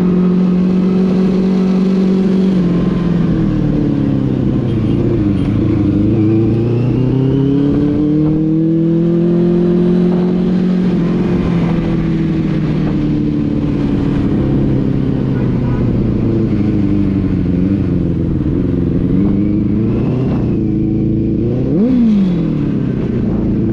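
Benelli TNT 600i's inline-four engine running under way, its revs repeatedly dropping and climbing again, with a quick sharp rev rise and fall near the end.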